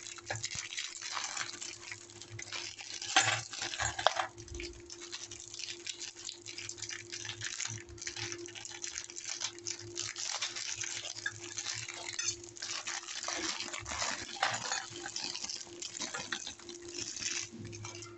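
Plastic biscuit wrappers crinkling as chocolate cream biscuits are emptied by hand into a stainless steel bowl, with small clicks of biscuits landing and a couple of sharper knocks a few seconds in. A faint steady hum runs underneath.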